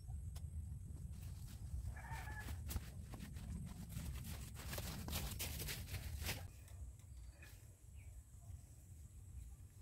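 Footsteps rustling through dense leafy ground vines, heaviest between about four and six and a half seconds in, over a low steady rumble. A brief animal call, like a chicken's, comes about two seconds in.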